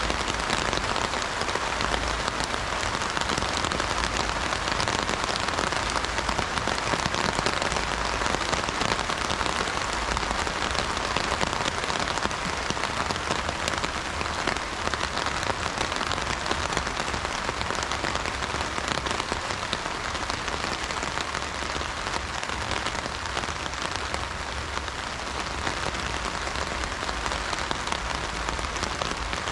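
Heavy rain falling on an umbrella's fabric canopy: a dense, steady patter of drops.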